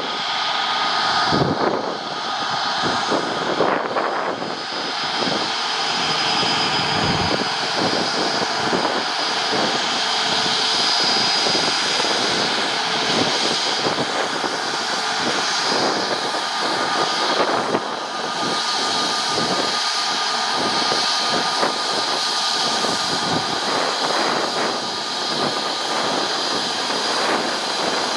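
Airbus A320neo's two CFM LEAP-1A turbofans running at taxi power as the airliner rolls by. The sound is a steady jet whine with high tones over a rushing noise.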